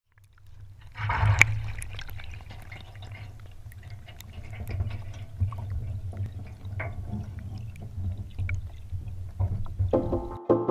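Water in a sous vide water bath, heard as if underwater: a sudden watery rush about a second in, then steady swirling with scattered small clicks over a continuous low hum. Music comes in near the end.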